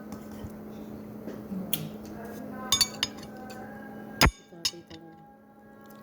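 Cutlery and dishes clinking during a meal: a few scattered sharp clinks and knocks, the loudest about four seconds in, over a steady low hum.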